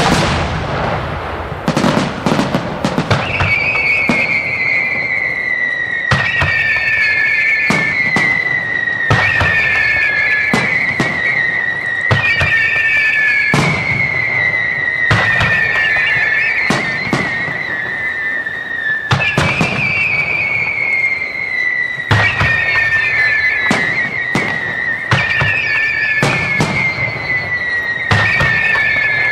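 Starmine fireworks barrage: a dense run of sharp bangs from launches and bursts that starts abruptly. Over the bangs, a whistling tone keeps coming back every few seconds, each time falling slowly in pitch for about two seconds.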